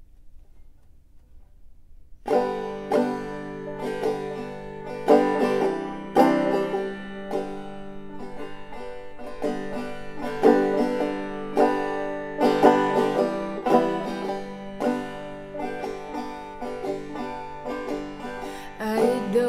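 Solo banjo playing a chordal instrumental intro, sharp plucked attacks with ringing strings, coming in about two seconds in after near silence.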